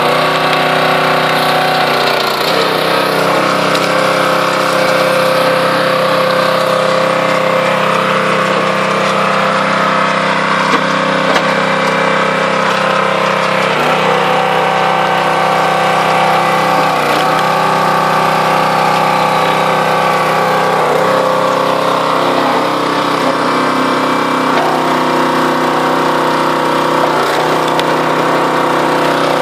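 Hydraulic 20-ton log splitter running steadily on its engine-driven pump, its note dipping briefly about five times as the ram takes up load. Wood creaks and cracks as pine logs are forced apart on the wedge.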